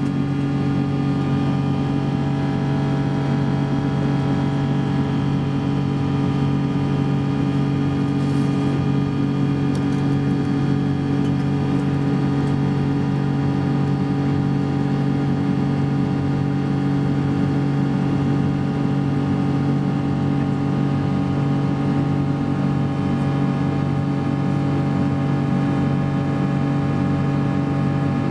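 Steady drone heard inside a Boeing 777-200 cabin: engine and air-system hum, with several steady tones over a rushing noise, unchanging throughout.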